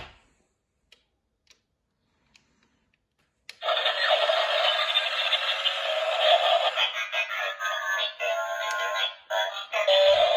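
A few faint clicks, then, about three and a half seconds in, a transforming robot toy truck's built-in speaker starts playing thin electronic music with a synthesised voice as the toy changes into a robot.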